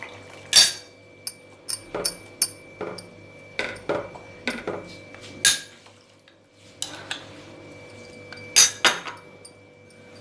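Spoon and silicone spatula clinking and knocking against a bowl and a nonstick pan as cornflour slurry is added to simmering soup and stirred. About a dozen irregular sharp clinks; the loudest come just under a second in, around the middle, and as a quick pair near the end.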